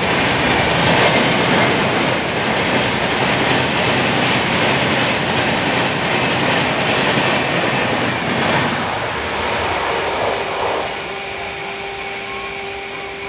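Secunderabad Rajdhani Express coaches running past at speed: a loud steady rumble of wheels on rail. About ten seconds in it drops to a quieter rumble, and a steady humming tone comes in over it.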